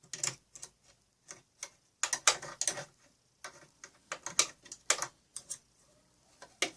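Small brush scrubbing lint from a sewing machine's feed dogs: irregular short scratchy strokes and clicks against the metal.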